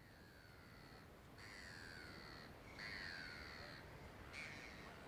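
Gulls calling faintly: four drawn-out calls, each about a second long and falling in pitch, the last one shorter.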